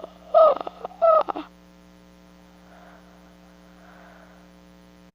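Two short, loud vocal whoops, each falling in pitch, in the first second and a half, then a steady electrical mains hum. The hum cuts off abruptly at the very end.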